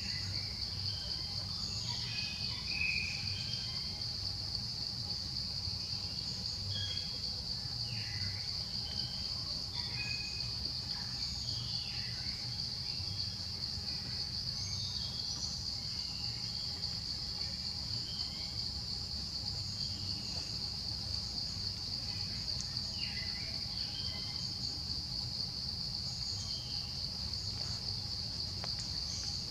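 Insects droning steadily at one high pitch, with scattered short bird chirps over them and a low rumble underneath.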